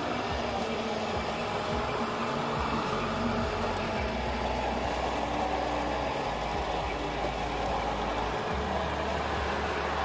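A steady engine-like running sound with faint steady tones, and a low rumble that swells and drops away in long stretches.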